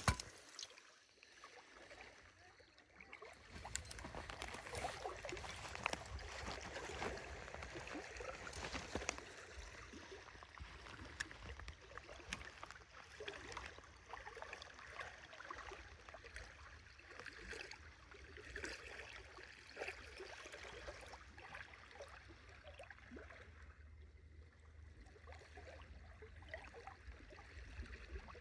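Faint lake water lapping and trickling in small irregular splashes, over a steady low rumble.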